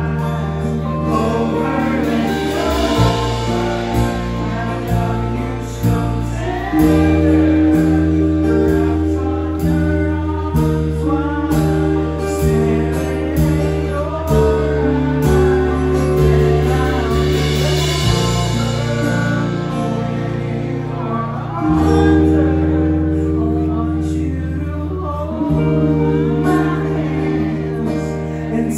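Live pop-rock band playing a song on a club PA: drum kit with cymbals, bass guitar holding long low notes, electric and acoustic guitars and keyboard, with a male lead singer.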